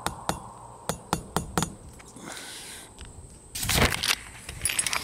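Hammer driving nails to fix a wind vane on a roof: about six sharp strikes in the first second and a half. Later a louder scuffing noise and a few light clicks.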